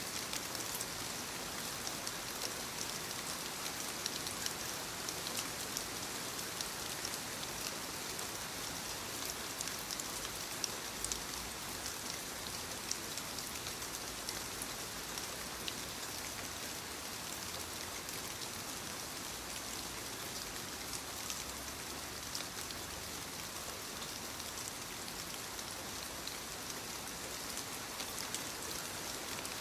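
Soft rain falling steadily on leaves: an even hiss sprinkled with many small, sharp drop taps.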